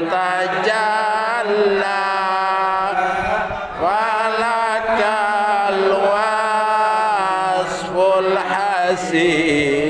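Men's voices chanting an Islamic devotional sholawat, drawing out long melismatic held notes that bend slowly in pitch.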